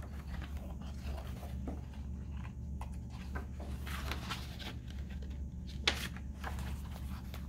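Pages of a large picture book being handled and turned: soft paper rustles and light taps, with one sharper click about six seconds in, over a steady low hum.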